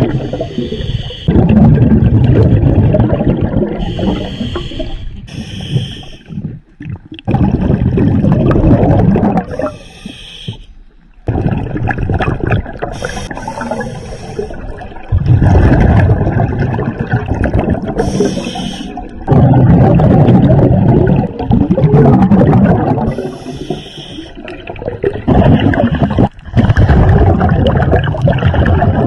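A scuba diver breathing underwater through a regulator: a short hiss on each inhale, then a long rush of bubbles on each exhale, repeating about every four to five seconds.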